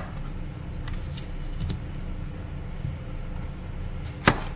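A kitchen knife cutting through a zucchini, the blade knocking once sharply on a plastic cutting board near the end, over a steady low hum.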